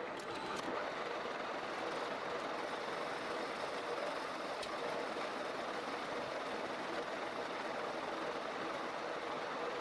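Metal lathe running steadily with its cutting tool taking a cut on a spinning metal workpiece, a continuous machining hiss over the hum of the spindle drive.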